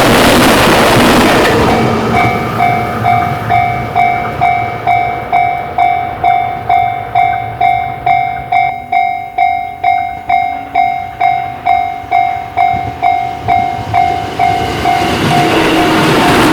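A train passes for the first second and a half, then a Japanese level-crossing alarm rings steadily, two tones struck together about twice a second. Near the end the noise of another approaching train builds up under the still-ringing alarm.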